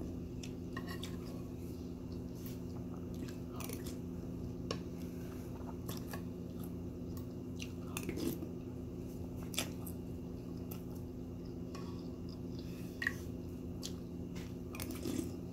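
Close-up chewing and crunching of Honey Nut Cheerios in milk, with scattered light clicks of a metal spoon against a ceramic bowl, over a steady low hum.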